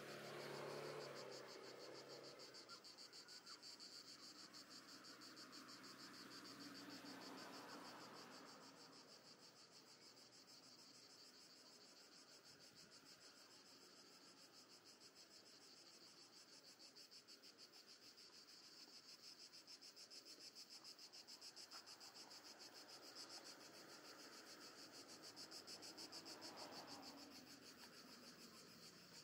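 Faint, steady, rapid chirring of cicadas in the pine trees. Passing cars swell up and fade a few times, loudest near the start and again near the end.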